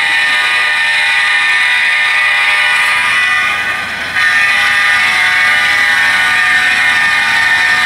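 HO-scale model diesel locomotive running, its sound decoder playing a steady diesel engine sound through a small onboard speaker. The sound sags a little about three and a half seconds in, then jumps back louder just after four seconds.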